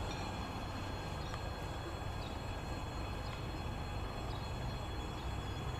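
Steady low hum and rumble of a ChS4T AC electric locomotive drawing a passenger train slowly in, with a few faint high chirps over it.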